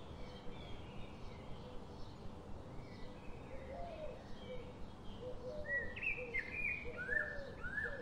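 Several birds chirping and calling in short swooping notes, some high and some lower-pitched, overlapping over a steady hiss, growing busier and louder about halfway through.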